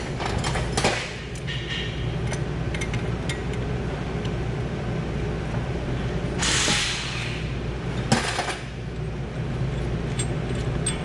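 Small metal clicks and knocks of pliers and hands working at a rear brake caliper bracket, over a steady low workshop hum. A brief hissing rush comes about six and a half seconds in, and a single sharp click about eight seconds in.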